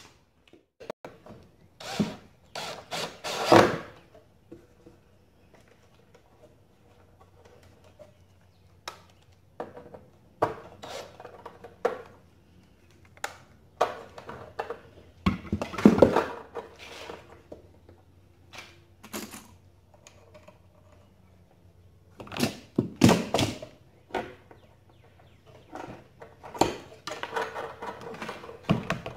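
Large wooden crates being handled and set against each other, giving irregular wooden thunks and clatters with quiet gaps between, the loudest about three and a half seconds in and again around sixteen seconds.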